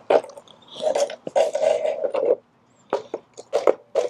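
Plastic clicks and a scraping rub from a cordless string trimmer being handled and turned into a new position, with the motor off. Sharp clicks about a second in and several more after the three-second mark.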